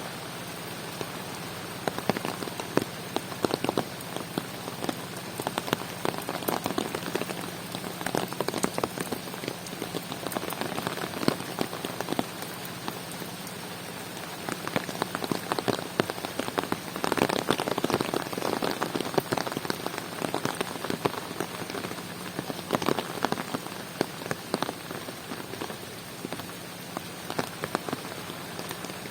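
Steady rain falling, with many sharp, close drop hits over the even hiss, heaviest a little past the middle. A faint low hum runs underneath.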